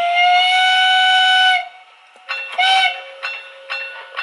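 Steam locomotive whistle sound played by the DCC sound decoder of a Lenz O gauge DB Br98.8 tank locomotive model: one long whistle blast that ends about a second and a half in. About two seconds in another sound effect starts, a short whistle toot over a steady tone with regular hissing pulses about twice a second.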